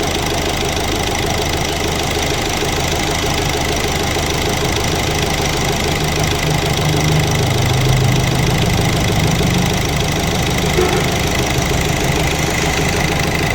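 Hyundai Accent's 1.6 CRDi diesel engine idling steadily after an overhaul, with a deeper hum growing stronger for a few seconds in the middle.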